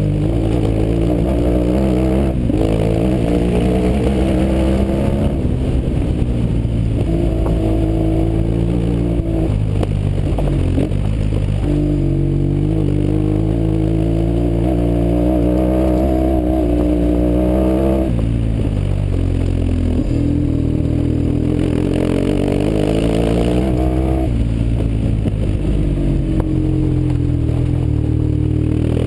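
BMW R1150GS's boxer-twin engine through an aftermarket FF Fresco exhaust, pulling the bike up a gravel track, its note rising and falling several times with the throttle.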